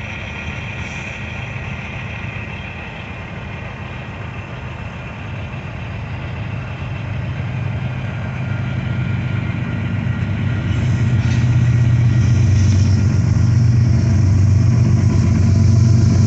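Union Pacific diesel locomotives approaching with a low engine rumble that grows steadily louder, and louder again from about ten seconds in as the lead unit nears.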